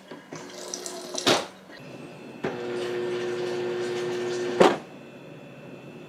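Whirlpool side-by-side refrigerator's water dispenser running, a steady hum with water flowing for about two seconds. Sharp knocks come about a second in, as the flow starts and, loudest, as it cuts off: water hammer, the flimsy water supply line slapping the back of the fridge.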